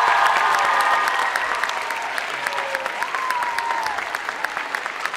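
Audience applauding after a performance. The clapping slowly thins and grows quieter.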